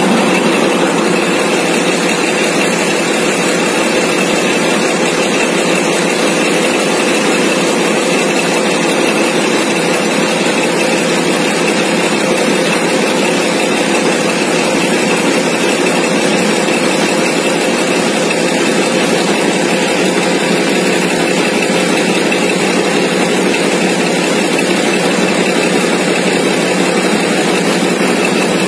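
Steady drone of heavy machinery running nonstop, with a constant hum under it and no change in level.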